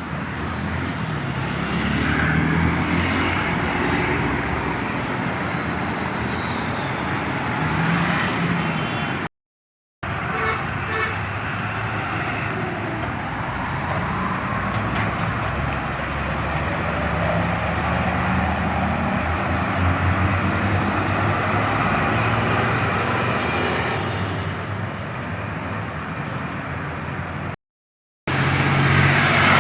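Intercity buses and traffic passing close by at a busy crossroads: the steady rumble of heavy diesel engines and tyres, with a few brief horn toots. It drops out to silence twice, briefly, at edit cuts.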